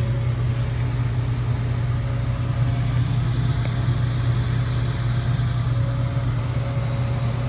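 Desktop PC running, its cooling fans making a steady hum with a faint whine above it, heard close to the case.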